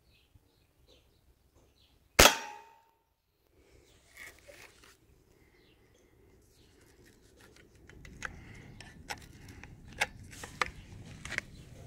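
A single sharp shot from a suppressor-fitted Mendoza .22 rifle about two seconds in, dying away over half a second with a brief ring. Over the last few seconds come quieter clicks and knocks as the rifle's action is handled.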